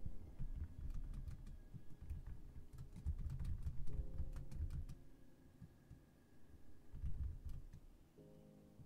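Soft low rubbing with scattered light clicks, starting and stopping in short stretches with brief pauses between.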